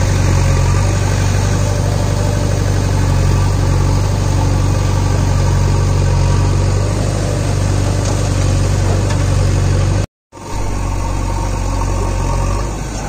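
Diesel engine of a JCB backhoe loader running steadily with a deep hum while it digs and loads soil. The sound cuts out for a moment about ten seconds in, then the engine is heard again.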